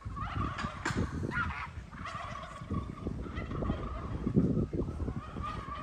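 Farmyard fowl calling repeatedly, several calls following one another, over a low irregular rumble that swells about four and a half seconds in.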